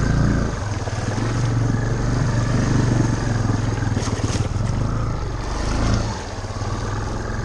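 Honda ATC Big Red three-wheeler's engine running steadily under load as its wide tyres churn through deep floodwater over a soft mud bottom. The engine note drops briefly about six seconds in.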